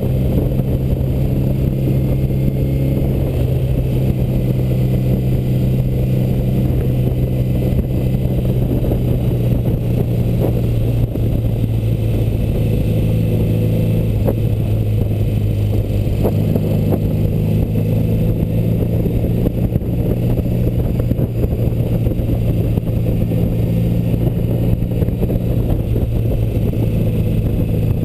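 BMW R75 air-cooled boxer twin running steadily at cruising speed under light throttle, heard from the bike with wind and road noise. The engine note shifts slightly about a third of the way in and again a little past halfway.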